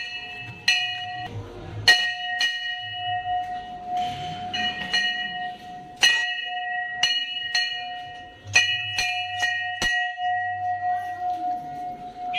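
Brass temple bells struck over and over at uneven intervals, about a dozen clangs. Each clang rings on with a high shimmer over a lower steady hum that carries through.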